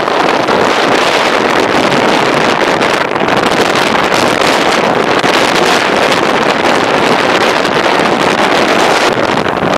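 Steady, loud rush of wind buffeting the microphone of a camera riding along a road, with engine and road noise from the moving vehicles mixed in.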